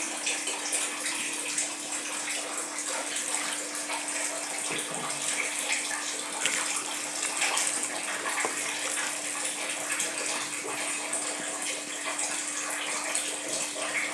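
Water running steadily from a tap, with a faint steady hum underneath.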